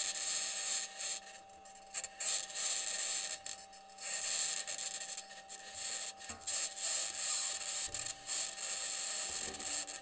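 Perseverance Mars rover driving, as heard by its EDL microphone: a scratchy, high-pitched rasping noise that comes and goes in stretches of a second or two, over a steady low hum and a fainter steady higher tone. The source of the scratchy noise isn't yet known; it may stem from electromagnetic interference with one of the rover's electronics boxes or from interaction between the rover and the ground.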